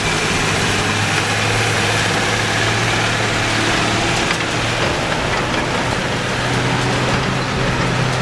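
Engine of an Sd.Kfz. 11 half-track idling steadily, a constant low hum.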